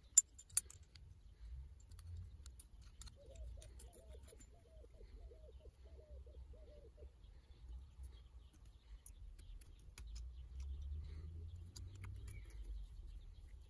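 Small metal clicks and taps of bolts and a brass jaw plate being handled and fitted onto a vise jaw. Two sharp clicks come just after the start, then fainter scattered ticks.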